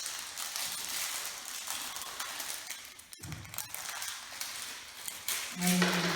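Rustling and handling noise of plastic parts as the lid of a wet/dry vacuum cleaner's tank is taken off, with a brief break about halfway through.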